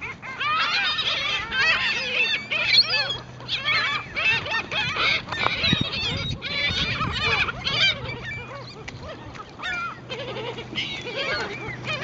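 A flock of seagulls calling, many harsh cries overlapping at once, thinning a little past the middle.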